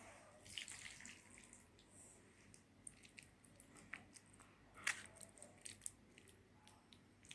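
Faint kitchen handling sounds: scattered light clicks and soft squishes as saucy pasta and cheese slices are layered into a foil container, with the sharpest click about five seconds in.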